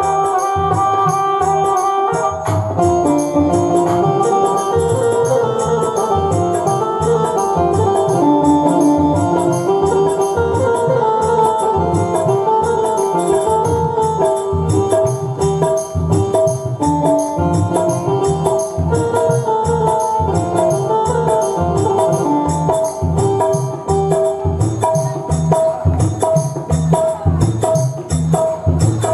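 Instrumental interlude of a bhajan: an organ-like melody played over a steady beat of Indian hand percussion.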